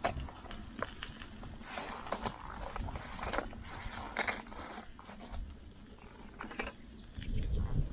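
A person eating: irregular bouts of crunchy chewing and biting lasting about half a second each, with scattered sharp clicks between them.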